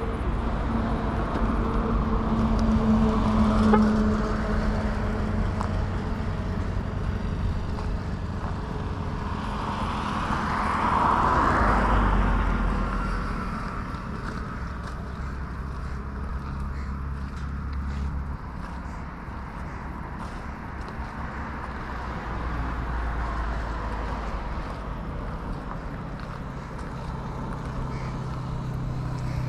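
Motor-vehicle and road-traffic noise: engines running steadily with a low hum. One vehicle grows louder and fades away about ten to thirteen seconds in.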